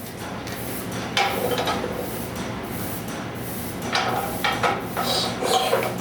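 Metal clinks and knocks from handling and pressing the bearings onto a Demco spindle's rear shaft, several separate strikes over a steady low machine hum.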